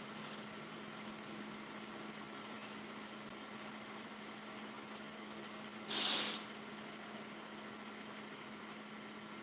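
Steady low hum of a truck idling, heard from inside the cab. A brief hiss comes about six seconds in.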